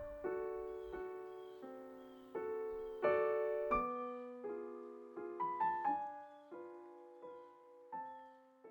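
Background music: a slow, gentle solo piano melody of single notes and chords, each struck and left to ring out.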